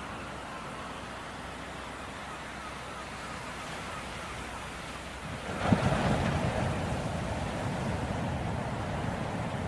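Ocean surf rushing steadily, with a wave breaking suddenly a little past halfway, after which the wash stays louder.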